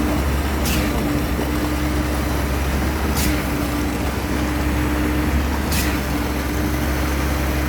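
Engine of a large vehicle running steadily with a low hum, and a brief high swish repeating about every two and a half seconds.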